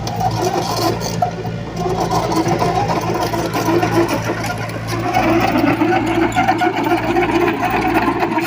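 Diesel engine of a construction machine running steadily with a rapid mechanical rattle, getting louder about five seconds in.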